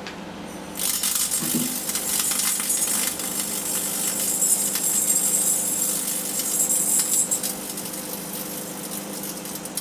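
Microwave oven running with a steady hum. Less than a second in, a loud crackling starts, most likely electrical arcing off the sealed beam headlamp's metal parts inside the oven, and eases off near the end.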